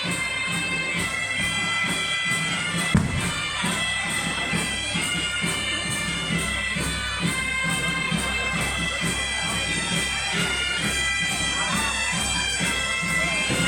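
Asturian bagpipe (gaita asturiana) playing a tune over its steady drone, with a steady beat under it. A single sharp knock about three seconds in.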